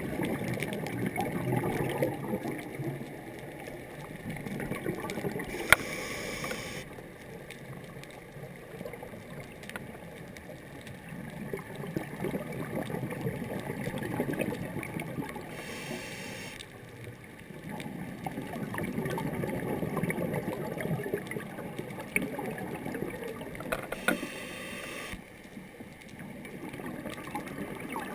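Scuba diver's regulator breathing heard through a GoPro dive housing: long stretches of bubbling exhaust alternating with three short hissing inhales, about one breath every nine seconds, with a few sharp clicks.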